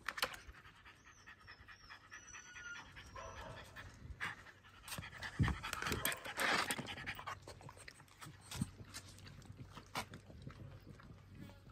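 French bulldog panting hard after vigorous running, with wet slaps and splashes as it paws in a plastic water basin.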